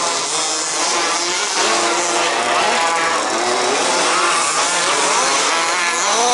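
Several 1/5-scale RC Baja cars' small two-stroke petrol engines revving up and down together, their pitches rising and falling and overlapping as the cars race around the track.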